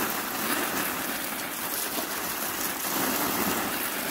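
Water from a hose spraying and splashing onto black plastic mulch and bare soil, a steady hiss.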